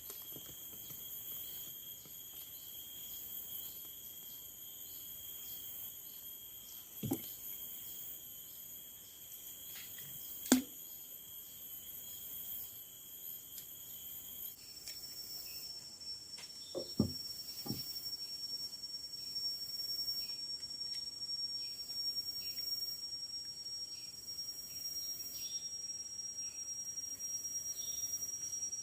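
Steady high-pitched chorus of tropical forest insects, crickets or cicadas, whose pitch shifts to a different tone about halfway through. A few sharp knocks stand out, three or four times.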